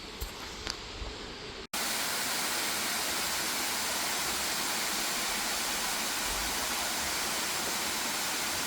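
Quiet outdoor ambience with a few small clicks, then, after an abrupt cut a little under two seconds in, the loud steady rush of a waterfall.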